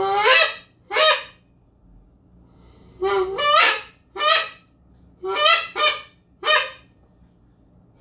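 Long wooden goose call blown in three short runs of honks. Many notes break upward from a low tone to a higher one, imitating a goose.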